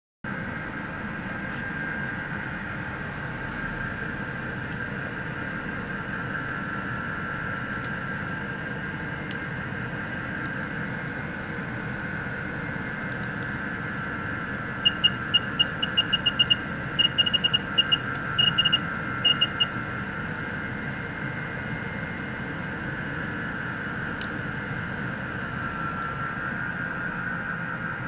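A steady hiss with a faint wavering whine throughout. Midway comes a quick run of about twenty short high electronic beeps over some five seconds: the key beeps of a FeelTech FY3200S function generator as its dial is turned to change the output frequency.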